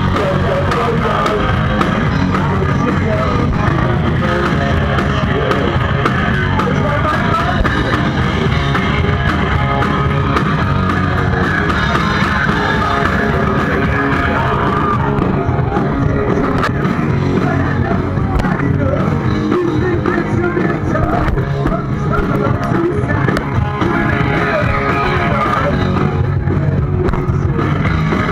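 Punk rock band playing live at full volume: singing, electric guitar and drums, heard from the audience.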